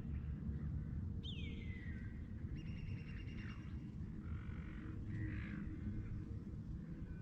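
Several birds calling: a sharply falling call about a second in, then a trill and a few shorter calls, over a steady low rumble.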